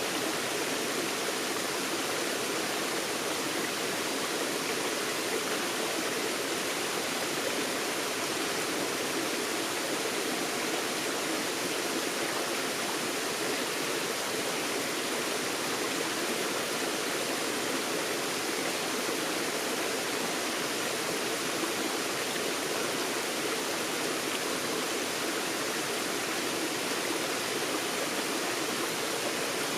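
Forest stream water flowing and rushing over rocks, a steady, even wash of sound without breaks.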